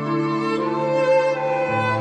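Background music of bowed strings, violin and cello, playing long held notes that change slowly a few times.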